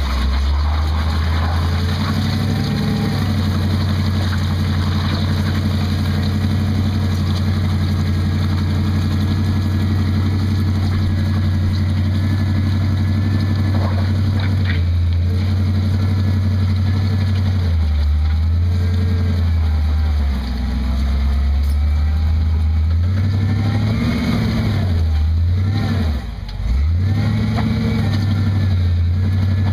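Rock buggy's engine running under load at high, steady revs while the buggy crawls up a rock ledge. The revs drop and climb back twice, about two-thirds of the way in and near the end.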